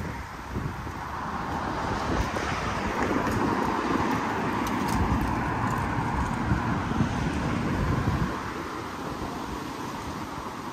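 Street traffic: a road vehicle passing close by, its noise building over the first couple of seconds and easing off about eight seconds in, with wind rumbling on the microphone.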